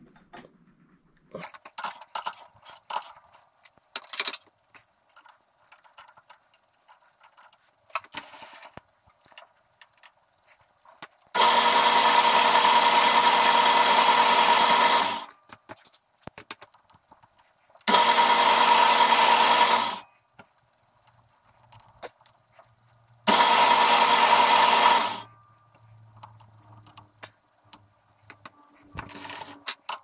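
Atlas metal lathe machining a small metal hood-latch part: three loud cutting passes of two to four seconds each, starting and stopping abruptly, with the lathe's motor humming faintly between them. Before them, a few sharp clicks as the chuck key tightens the part in the chuck.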